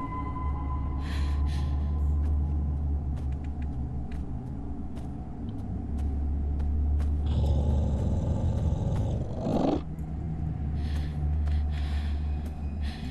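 Deep, steady rumbling drone of a dramatic film soundtrack, with several short hissing sounds over it, the longest in the second half.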